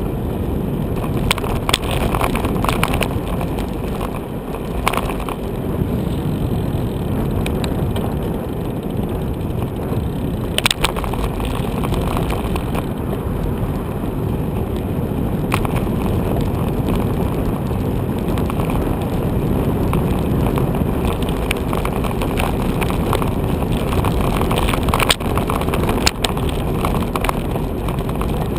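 Bicycle riding over a rough, patched road surface: a steady rumble of tyre and wind noise, with several sharp knocks and rattles scattered through. The loudest knocks come about eleven seconds in and near the end.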